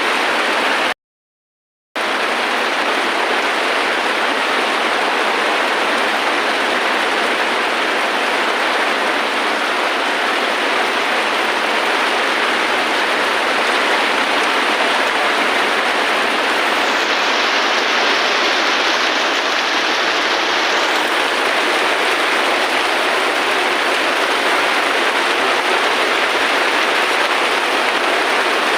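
Steady, heavy rainfall as an even hiss of water, which cuts out to silence for about a second near the start.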